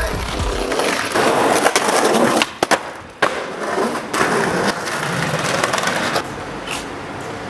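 Skateboard wheels rolling over concrete paving, with several sharp clacks of the board. The loudest clack comes about three seconds in, after a short lull. The rolling quietens over the last second or so.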